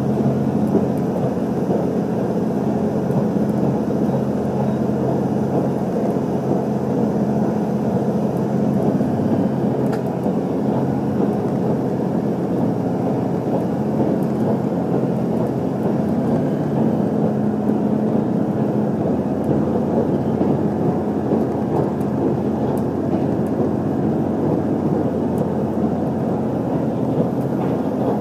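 Cabin running noise of a JR Central HC85 series hybrid diesel-electric train under way: a steady rumble of the wheels on the track with a low, steady hum.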